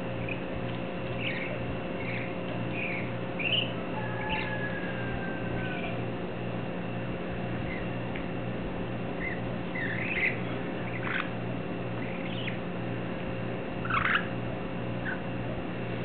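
Budgie chicks about three to four weeks old giving short, scattered chirps, the loudest about fourteen seconds in, with one longer falling whistle about four seconds in. A steady low pulsing hum runs underneath.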